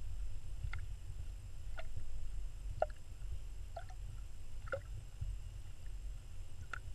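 Underwater ambience picked up by a submerged camera: a steady low rumble of water moving around the housing, with faint short clicks about once a second.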